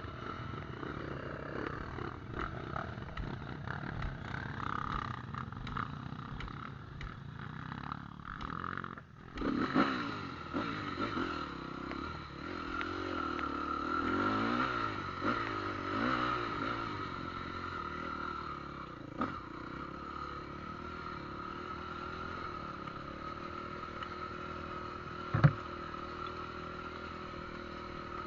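Motorcycle engine running while under way, its pitch wavering up and down with the throttle, with a few sharp knocks.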